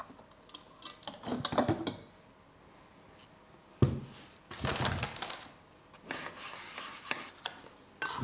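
Kitchenware being handled: a few clicks and rubs, then a sharp knock about four seconds in followed by a second or so of scraping, and a few light clicks near the end.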